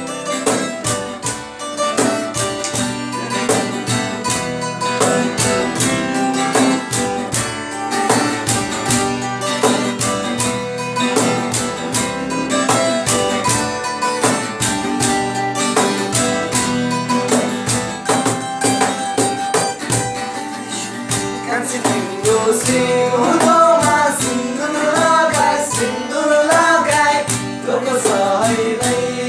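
Acoustic guitar strummed in a steady rhythm. Over the last several seconds a wavering melody line rises above the strumming.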